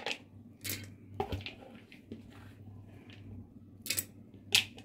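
Handling noise: a few short, sharp clicks and scuffs, three in the first second or so and two more near the end, over a faint steady low hum.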